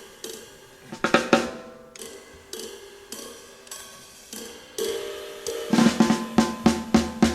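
Jazz drum kit playing in a live piano-trio recording taped off an FM broadcast onto cassette. Scattered snare and cymbal strokes are followed by a loud flurry about a second in. Near the end the drums settle into loud, even strokes about three a second.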